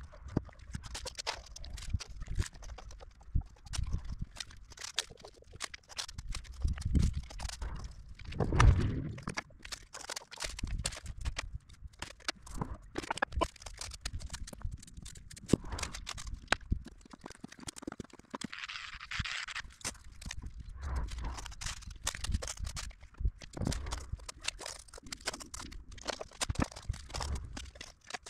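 Irregular knocks, taps and scrapes of polystyrene insulation boards being handled and pressed against a wall, with a louder thump about a third of the way in and a short hissing scrape past the middle.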